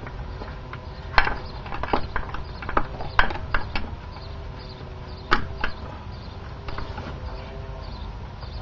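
Irregular sharp clicks and knocks of hand tools and parts as a new idler pulley assembly is threaded back into place on the engine, the loudest about a second, three seconds and five seconds in.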